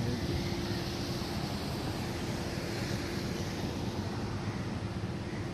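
Crawler hydraulic excavator's diesel engine running steadily, with one constant hum held over the low engine sound.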